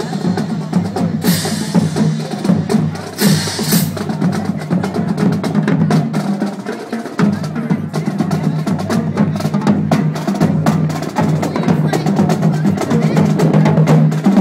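Pipe band drum corps playing as it marches: snare drums rattling and clicking over tenor and bass drums in a steady marching beat, with a low held tone underneath.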